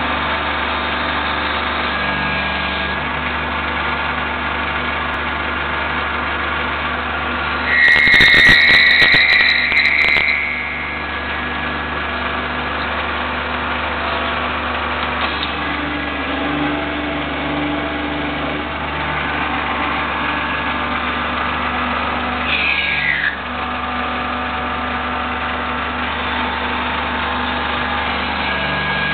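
Intorex TR90 automatic lathe running with a steady mechanical hum. About eight seconds in, a loud, high-pitched squeal with rattling clicks lasts about two seconds. Later there is a brief whine falling in pitch.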